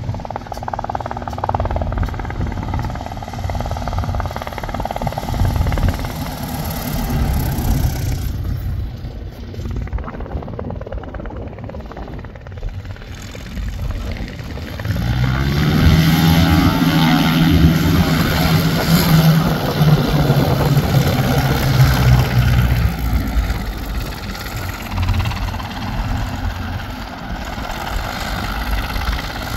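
Piper PA-18 Super Cub's engine and propeller, running quietly on a power-reduced landing approach, then louder with a steady droning pitch from about halfway as the plane taxis on the grass.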